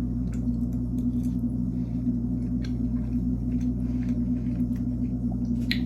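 Steady low hum with a fixed tone, and a few faint light clicks scattered through it.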